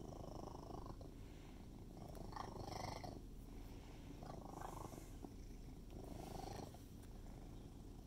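Domestic cat purring steadily, a low rumble that swells and eases with each breath about every two seconds.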